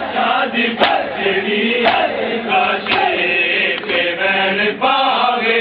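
Crowd of men chanting together in unison, with sharp slaps of hands striking bare chests in time about once a second: matam, ritual chest-beating in mourning.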